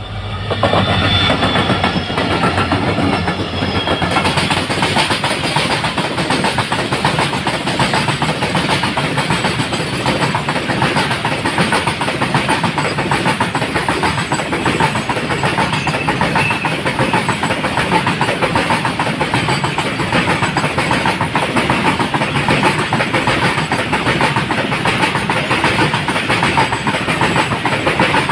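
A diesel-hauled freight train passing close by. The locomotives go by in the first seconds, then a long rake of open freight wagons keeps up a steady loud rumble and rattle of wheels on the rails.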